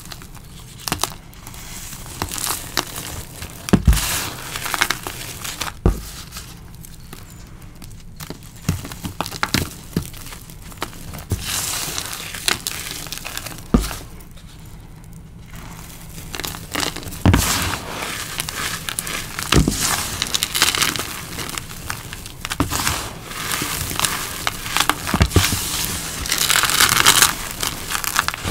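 Hands squeezing and crumbling powdery chalk and cornstarch with broken chalk chunks and bits of dried leaves: irregular crunching and soft powdery crumbling, broken by occasional dull knocks. The crumbling is densest near the end.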